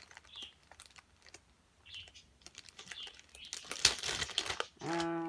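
Light scattered clicks and taps of small objects being handled, with one sharper click about four seconds in. Near the end, a short held voice sound on one steady pitch, like a hummed 'mm'.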